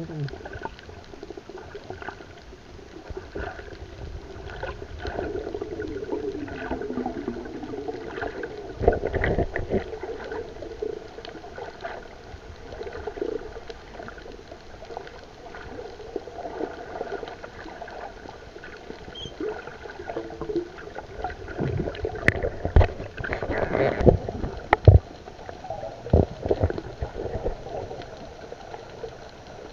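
Muffled underwater sound picked up by the submerged camera: water noise with gurgling and bubbling, and a few sharp knocks in the later part.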